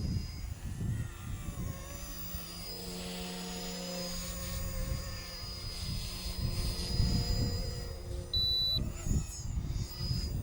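OMP M1 electric RC micro helicopter flying, its motors and rotors giving a steady high whine, with a lower steady hum for a few seconds in the middle. Wind buffets the microphone throughout.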